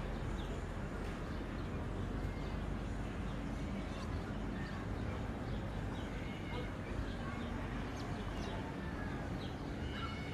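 Outdoor promenade ambience: a steady low rumble of background noise with faint distant voices, and short bird chirps scattered through the middle and near the end.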